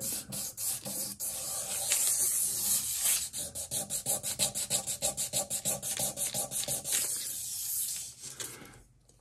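Extremely fine aluminum oxide sandpaper rubbed by hand in quick back-and-forth strokes, about four a second, over the metal mating surface of a Linn LP12 outer platter, taking off oxidation spots left by finger oil. The strokes stop near the end.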